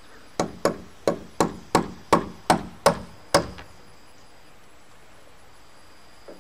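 Hammer striking wooden roof framing: nine sharp blows at about three a second, then it stops.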